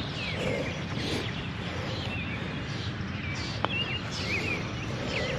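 Several songbirds chirping and twittering over a steady low outdoor noise, with one sharp click about two-thirds of the way through.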